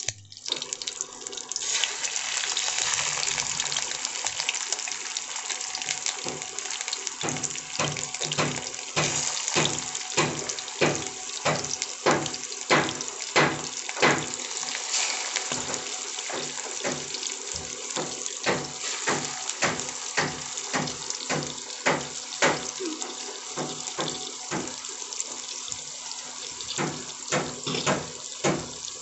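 Hot oil sizzling in a frying pan as pieces of fish offal (roe and liver) are put in: a steady hiss with frequent sharp crackling pops, about two a second from roughly a quarter of the way in.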